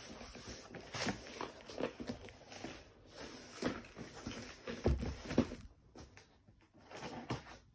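Cardboard shipping box being handled and turned over, with scraping, rustling and irregular knocks against the table; a couple of heavier thuds a little past the middle as it is set down, then soft picking at the packing tape.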